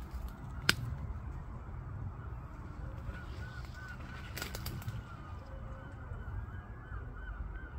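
Distant birds giving a string of short, repeated honking calls over a steady low rumble, with one sharp knock just under a second in.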